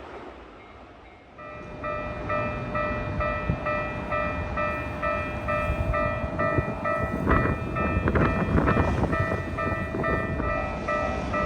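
Japanese railway level-crossing warning bell starting up about a second and a half in and ringing in a steady kan-kan rhythm, about two strikes a second. Under it a Keikyu train rumbles through the crossing, loudest about seven to nine seconds in, with wheel clatter.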